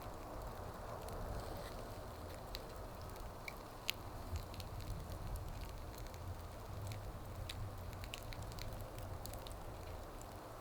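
Wood fire crackling steadily, with scattered small pops from the burning wood and one sharper pop about four seconds in.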